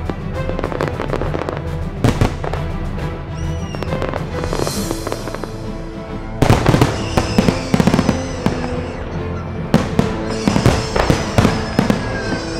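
Fireworks show: aerial shells bursting and crackling over music with steady tones. The cracks come thick and loud from about six seconds in.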